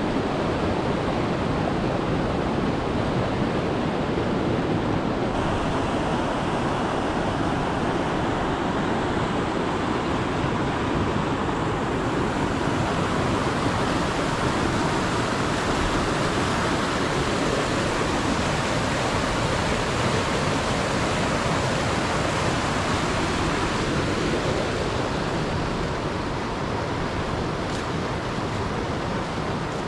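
Rocky river rushing over boulders: a steady, unbroken noise of running water.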